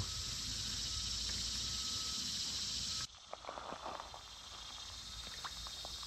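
Steady high insect chorus, which cuts off abruptly about halfway through. After it come faint, scattered small splashes and trickles as a hand lowers a bluegill into shallow creek water and lets it go.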